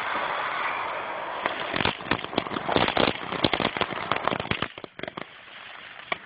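Small consumer firework going off: a steady hiss for about a second and a half, then a rapid string of sharp crackling pops for about three seconds, dying down near the end.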